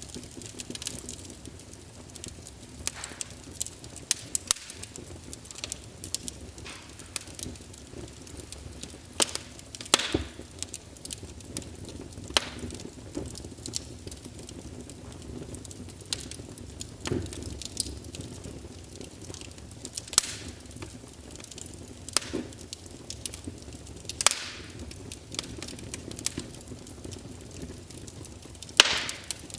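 Wood fire crackling: irregular sharp pops and snaps, a few louder cracks among many small ones, over a low steady rush of flame.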